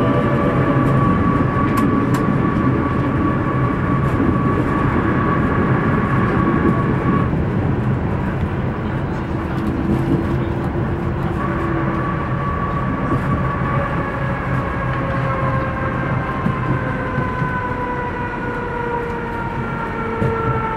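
Konstal 102Na tram running, heard from inside the car: a steady rumble of wheels on the rails under a motor and gear whine. About halfway through, the whine starts to fall slowly in pitch, as the tram slows.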